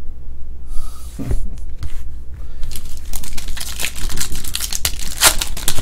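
A stack of baseball trading cards being handled and flipped through by hand: a brief rustle about a second in, then a quick run of card snaps and rustles through the last three seconds.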